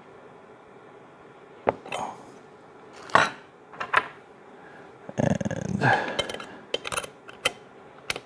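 Metal tools and parts clinking and knocking as two wrenches are fitted onto a trimmer's saw blade and tightening nut: a string of sharp clicks, with a longer clattering, scraping stretch about five seconds in.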